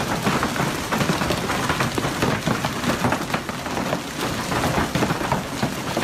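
Hailstones pelting the ground in a heavy storm: a loud, steady hiss made of countless small impacts.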